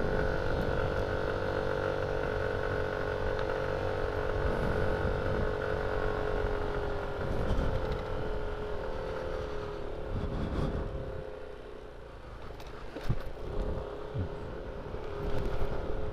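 Yamaha NMAX scooter's single-cylinder engine pulling uphill, a steady drone that fades after about nine seconds, followed by a few knocks in the last few seconds.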